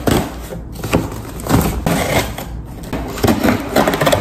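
Kitchen knife slitting the packing tape along the seam of a cardboard shipping box, a run of irregular scratchy strokes, with the cardboard flaps scraping as they are pulled apart.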